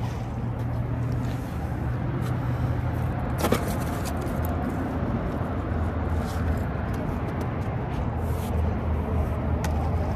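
Steady low hum over a rumbling background, with a few sharp clicks, the loudest about three and a half seconds in.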